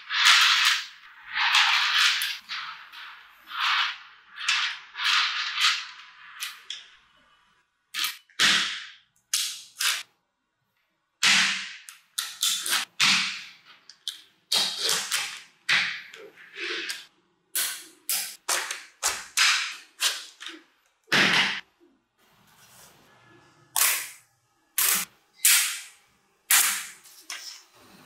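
Small magnetic balls clicking and snapping against one another as strands are laid into rows and pressed into stacked slabs. The sound comes in dense rattling runs and single sharp snaps, with short quiet gaps between.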